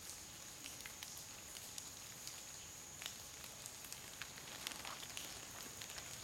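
Wet monsoon forest ambience: a steady, high-pitched insect drone, with scattered light ticks and crackles throughout.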